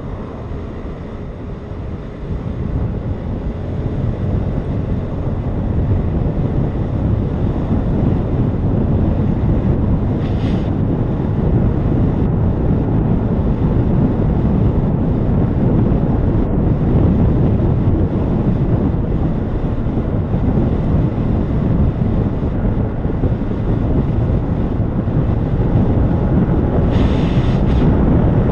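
Motor scooter ridden hard at speed, wind rushing over the camera microphone and covering most of the engine note. The roar builds over the first several seconds and then holds steady.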